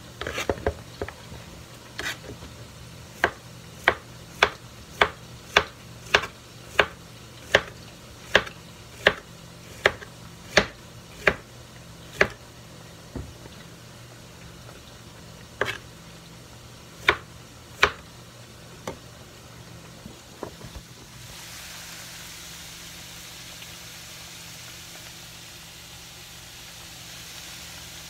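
A kitchen knife knocking on a cutting board about a dozen times at a steady pace of roughly one and a half strokes a second, then a few scattered knocks. From about 21 seconds in, a steady sizzle of green banana slices frying in oil in a cast-iron skillet.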